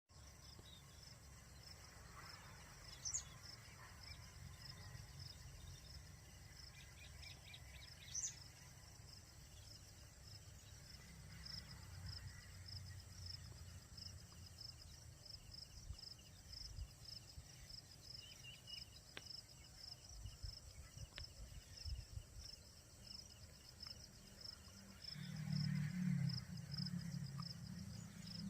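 A steady, high-pitched insect trill in even pulses, cricket-like, with two short, sharp rising bird calls a few seconds apart in the first third. A low rumble, the loudest sound, comes in near the end.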